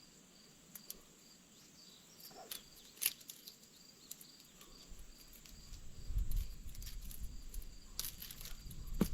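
Insects trilling steadily with a pulsing high chirp, broken by a few light sharp clicks. A low rumble builds up from about six seconds in.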